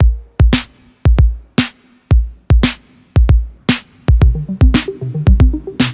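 Electronic background music with a drum-machine beat, kick and snare about two hits a second; a bass line comes in about four seconds in.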